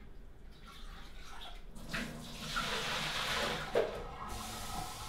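Faint running water, as from a tap, starting about two seconds in and stopping a little after four seconds, with a short knock just before it stops.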